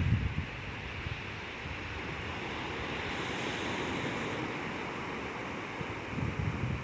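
Ocean waves on the shore: a surge eases off just after the start into a steady wash and hiss of water, and the next wave begins to build near the end.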